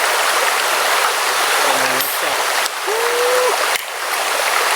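Mountain river rushing steadily over its bed, with a brief short tone about three seconds in.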